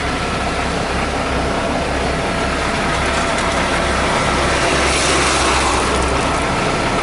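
Steady running noise inside a truck cab: the engine's low hum under an even hiss, with a faint steady whine.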